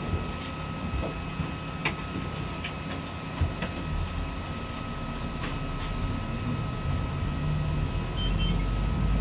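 Cabin sound of a Hino diesel route bus under way: the engine rumble builds from about a third of the way in and is loudest near the end, as the bus pulls harder. A thin steady high tone runs throughout, and the cabin gives a few sharp rattles and knocks.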